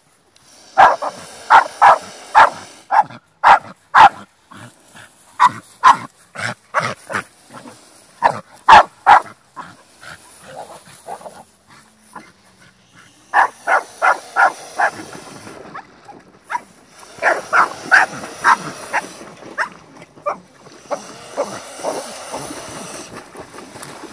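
Dog barking in bouts of short, sharp barks, about two a second. Near the end, water splashes as a mute swan beats its wings on the surface.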